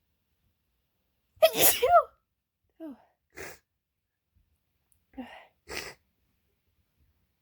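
A woman sneezing three times. The first, about a second and a half in, is loud and voiced; two smaller sneezes follow, each led by a short catch of breath.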